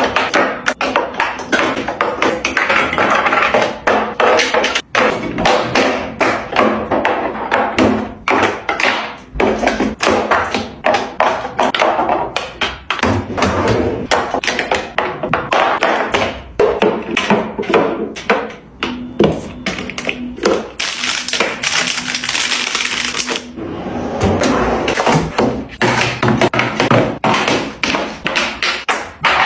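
Fridge being restocked: a rapid, continuous run of taps and knocks as containers and packages are set down and arranged on the shelves.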